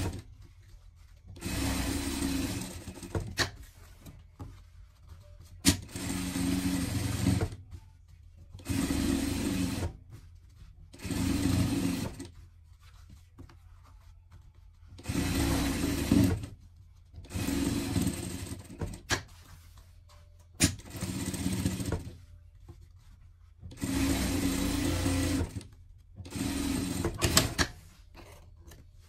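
Industrial straight-stitch sewing machine topstitching a garment in about ten short runs of a second or two each, stopping between runs while the fabric is turned. Sharp clicks fall in some of the pauses.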